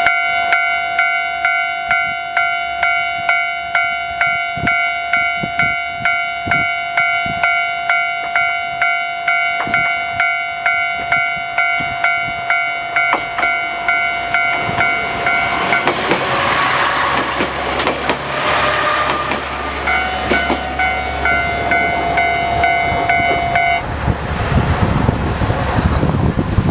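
Japanese level-crossing warning bell ringing about twice a second. About two-thirds of the way in, a diesel railcar on the Isumi Railway passes over the crossing and its running noise briefly covers the bell. The bell stops a few seconds before the end.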